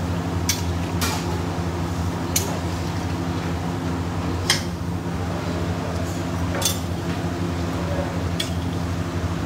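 Wooden spatula knocking and scraping against a steel kadai while stirring a simmering curry, about six sharp knocks, over a steady low mechanical hum.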